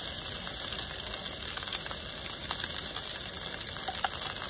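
Marbled beef steaks and a cube of beef fat frying in a pan, a steady fine sizzle and crackle of hot fat. A couple of small clicks near the end as metal tongs go in to turn the meat.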